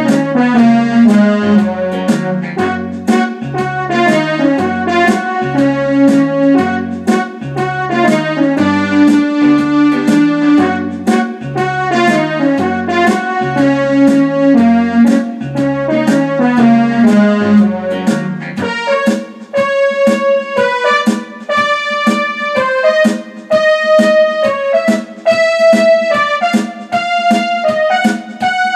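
Electronic arranger keyboard playing a blues piece: a steady repeating bass line under chords and melody. About two-thirds of the way through, the bass drops out and the keyboard carries on with sparser, held melody notes in a lighter voice.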